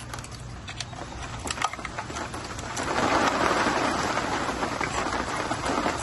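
Hands rummaging a bundle of e-bike wires and connectors, with scattered clicks, then a louder, rough rustling and scraping about three seconds in as the aluminium motor controller and its wiring are pulled out of the frame's compartment.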